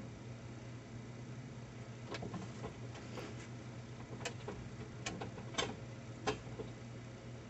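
Faint irregular knocks and creaks of someone climbing down through an attic hatch, starting about two seconds in, with the two loudest knocks near the end, over a steady low hum.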